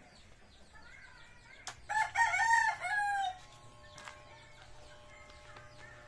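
A rooster crows once, about two seconds in: a loud wavering call ending in a falling tail. After it a faint steady hum runs on, from the electric hair clippers now in use.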